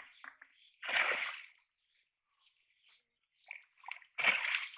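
Two short splashes of shallow water, about a second in and near the end, as a wet cast net holding a fish is pulled through the water at the bank.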